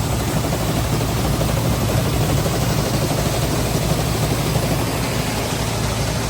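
A vehicle engine running steadily, with a low rumble.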